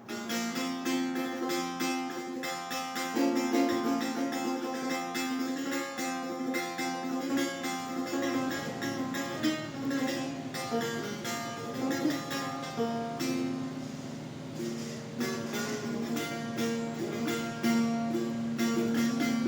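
Setar played solo, improvising in dastgah-e Shur. Quick runs of plucked notes start right at the beginning over a steadily ringing low note.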